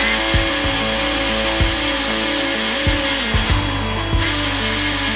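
Handheld cordless power drill running steadily against a wheel hub, with a harsher, louder stretch a little after three and a half seconds. Background music plays throughout.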